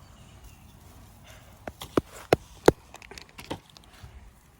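Toy monster trucks and a plastic ramp being handled, knocking together: a handful of sharp clicks and knocks, the three loudest about a third of a second apart around two seconds in, followed by lighter taps.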